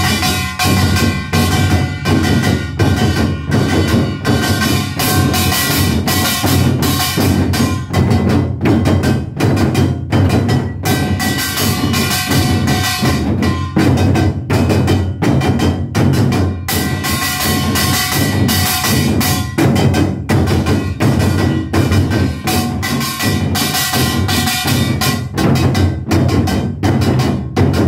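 Modumbuk, the Korean multi-drum set, beaten rapidly with sticks in a nanta rhythm over a backing music track.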